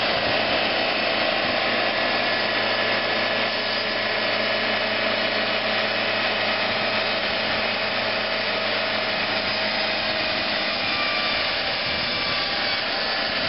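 Wood-Mizer LT40 portable band sawmill running, its band blade sawing through a log over a steady engine hum.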